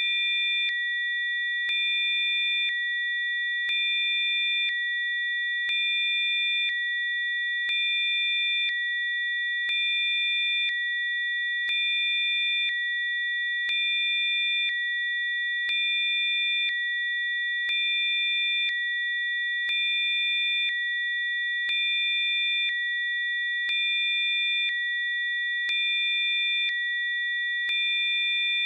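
Electronically generated steady tones, several high pitches sounding together, stepping slightly louder and softer about once a second with a faint click at each change.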